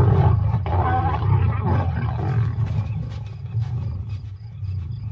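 Lions growling: a deep rumbling growl, loudest at the start and fading away over the next few seconds.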